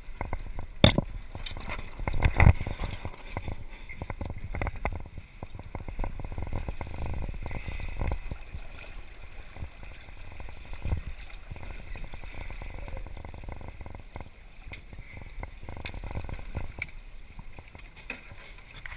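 Small sailing dinghy under way: water lapping and gurgling against the hull, with wind rumble on the microphone. Irregular knocks and clatters come through, the sharpest about a second in and again about two and a half seconds in.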